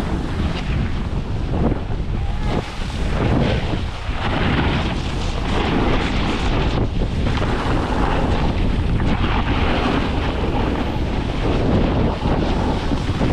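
Wind buffeting the microphone during a fast downhill run on snow, under a steady rushing hiss with the scrape of edges on the snow.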